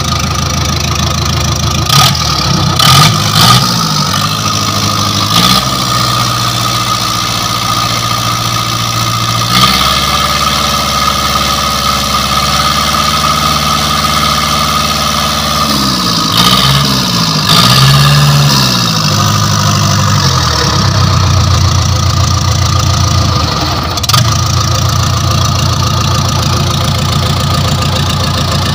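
Caterpillar D3C bulldozer's diesel engine running just after being started, its injector pipes freshly refitted. Its speed rises and falls a few times, in the first few seconds and again past the middle, then it settles into a steadier, faster run.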